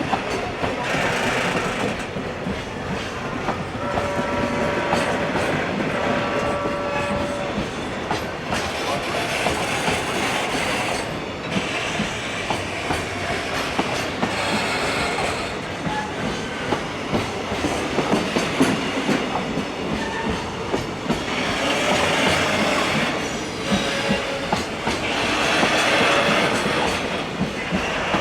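Freight train wagons rolling past over the rail joints with a steady clickety-clack. A short steady tone sounds twice, about four and six seconds in.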